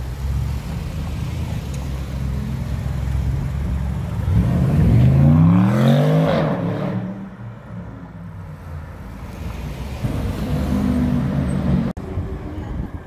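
Porsche Panamera engine rumbling in traffic, then accelerating hard about four seconds in, its pitch climbing and loudest around six seconds before fading as the car pulls away. A lower engine rumble returns a few seconds later.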